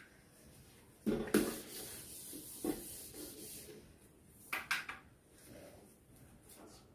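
Eraser rubbing across a whiteboard, wiping it clean in scratchy strokes starting about a second in and dying away after about four seconds. A few short knocks come in the middle and a little later.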